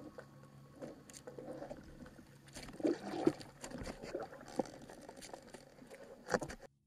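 Water moving and sloshing, recorded underwater, with scattered clicks and knocks and a few louder splashy bursts about three seconds in and just before the end; the sound cuts off suddenly near the end.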